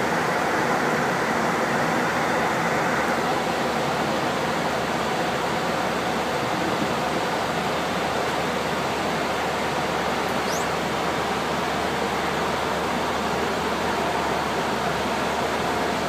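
Boeing 737 flight deck ambience: a steady, even rush of air and equipment noise with no change in level.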